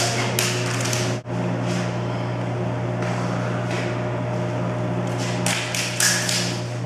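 Drink vending machine running with a steady low hum, which drops out for an instant about a second in. Near the end come a few brief soft sounds of the plastic juggling rings being caught.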